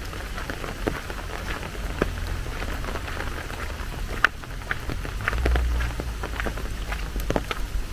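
Steady rain falling, with scattered individual drops striking close by as sharp taps, over a low rumble.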